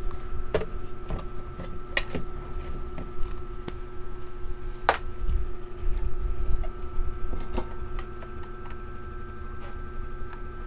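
Scattered sharp clicks and light knocks from handling tools on a circuit board, the loudest about five seconds in, over a steady hum.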